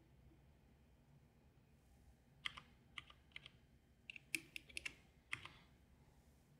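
Keys on a HedgeHog 4 lighting console being pressed: about a dozen quick, sharp clicks over some three seconds, starting about two and a half seconds in, with a fast cluster in the middle.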